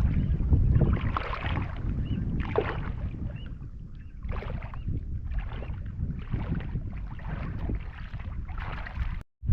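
Water splashing and sloshing in a run of short swishes, about one to two a second in the second half, over a low rumble of wind on the microphone.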